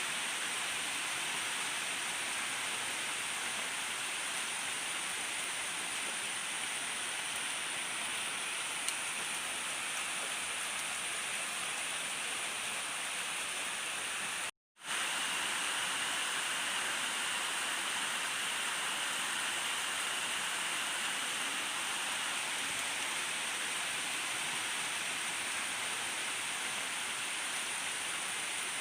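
Steady rain falling, an even hiss with no thunder. The sound briefly cuts out to silence about halfway through.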